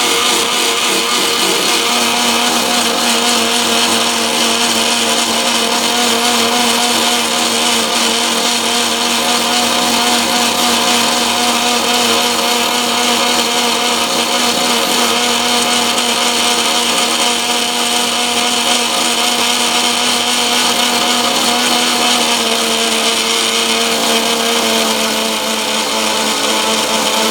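Electric mixer grinder running steadily at high speed, grinding coconut with a little water into a fine paste. The motor's tone shifts slightly about 22 seconds in.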